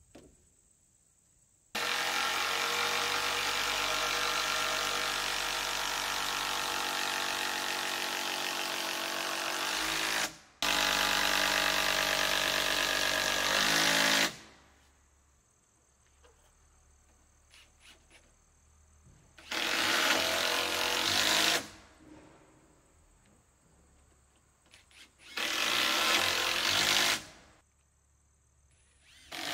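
Cordless drill driving long screws into the timber rafters. It runs continuously for about eight seconds, stops briefly, then runs a few seconds more, followed by shorter bursts of a second or two each.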